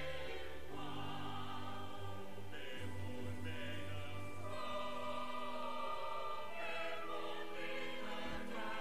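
Slow background music with choir voices holding long, sustained notes at a steady, soft level.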